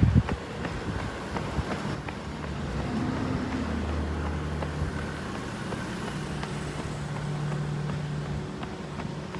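A motor vehicle's engine running with a steady low hum from about two seconds in, over street ambience, with light regular footsteps. A single loud thump comes at the very start.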